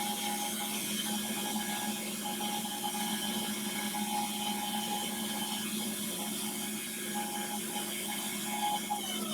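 Power sander running steadily with an even hum, used to taper a small wooden drawer handle.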